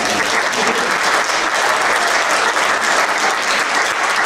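Audience clapping in a loud, steady round of applause.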